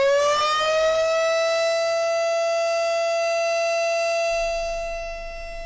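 Outdoor warning (tornado) siren wailing: its tone rises over the first second, then holds steady, growing quieter near the end. It is a false activation caused by a malfunction, not an emergency.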